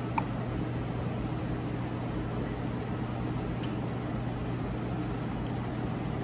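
Steady low hum, with a couple of faint metallic clicks as a small nut on an Allis-Chalmers tractor distributor's breaker plate is tightened by hand.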